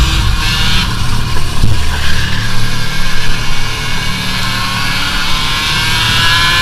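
Racing kart's two-stroke engine heard onboard at speed, its note climbing steadily through the second half as the kart accelerates, over a low rumble.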